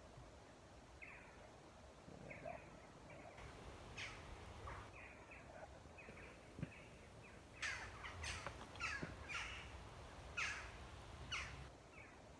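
Birds calling in the woods: scattered short calls, growing into a quicker, louder series in the second half. Two sharp clicks fall in the middle.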